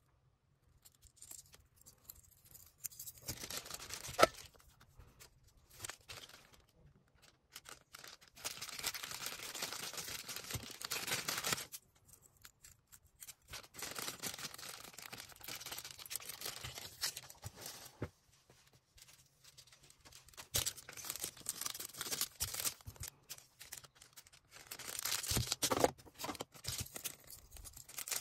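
Packaging being handled while an order is packed: plastic and paper rustling, crinkling and tearing in several stretches of a few seconds each, with short pauses between them. A sharp click about four seconds in.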